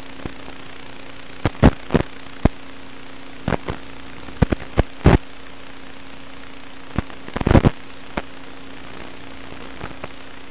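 Steady static hiss with a constant electrical hum, broken by irregular sharp crackles and pops, with a small cluster of them about seven and a half seconds in. It is the noisy audio of an analog FPV video link rather than the quadcopter's motors, whose pitch would shift with throttle.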